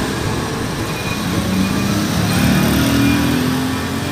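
Honda City Type Z sedan's engine pulling away, its note rising steadily from about a second and a half in, over street traffic noise.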